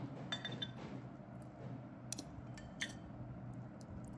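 A metal spoon clicking lightly against glass bowls a few times as soft soaked dumplings are spooned in, over a steady low hum.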